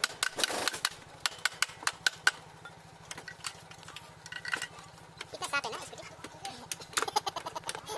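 Irregular metallic clinks and taps of hand tools on a scooter's kick-start assembly and casing during repair, over a faint low hum.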